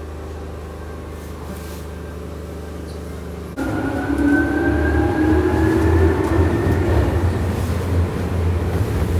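Tokyu 8500-series electric train: a steady low hum, then, from about three and a half seconds in, louder running with a motor whine that rises slowly in pitch as the train gathers speed.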